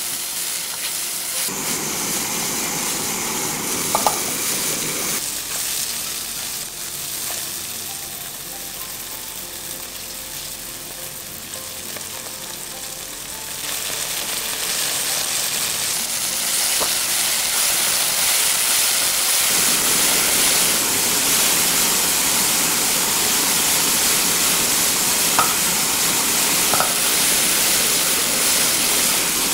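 King oyster mushrooms, chilies and scallions sizzling in a hot nonstick wok over high heat while a silicone spatula stirs them, with a few light taps of the spatula on the pan. The sizzle grows louder about halfway through, as oyster sauce goes into the hot pan.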